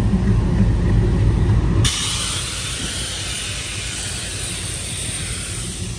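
Diesel locomotive engines idling with a low, steady rumble. About two seconds in, the rumble drops away abruptly and a steady hiss takes over.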